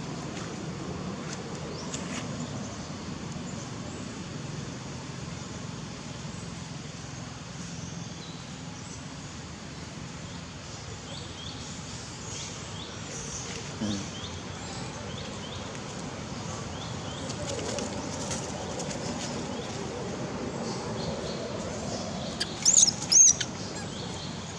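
Baby monkey crying: scattered faint high squeaks over a steady outdoor background, then two or three short, loud, high-pitched squealing cries near the end.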